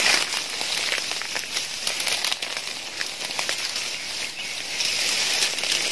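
Dry leaves and twigs rustling and crackling, with many small irregular cracks, as someone moves through forest undergrowth.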